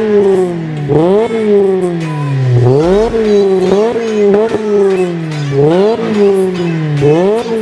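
Mk2 VW Golf GTI 1.8 16v inline-four engine free-revving through its exhaust: about eight quick throttle blips, each rising sharply in pitch and falling back more slowly.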